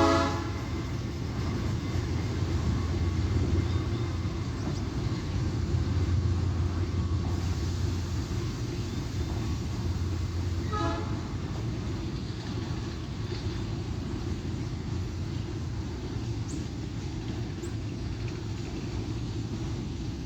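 Freight train hauled by GE U20C diesel locomotives rolling past with a steady low rumble. Two short horn toots sound, one at the very start and another about eleven seconds in.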